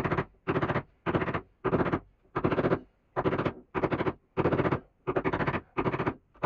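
A hand tool working wood in steady back-and-forth strokes, about two a second, each stroke a short scraping rasp.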